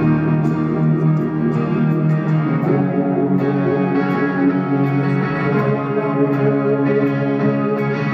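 A live rock band playing amplified music steadily, heard from among the audience.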